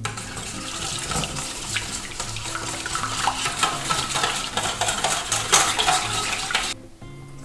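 Wire whisk beating an oil, mustard, honey and water dressing in a stainless steel bowl to emulsify it: a fast, steady rattle of the wires against the metal bowl that stops near the end.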